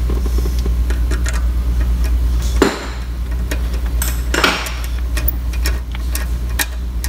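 Metal clicks and clinks of a ratchet and socket extension being fitted and turned on the shifter mounting bolts, with two louder knocks about two and a half and four and a half seconds in, over a steady low hum.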